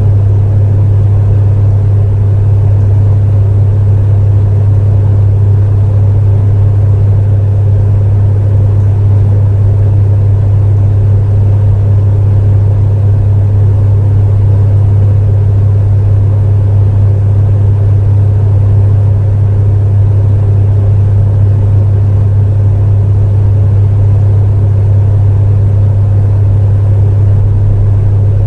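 Electric space heater running steadily: a constant loud low hum over an even, muffled rushing noise.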